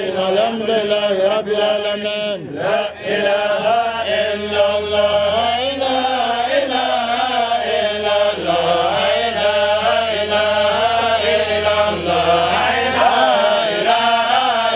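A man chanting a supplication prayer in one long, melodic line.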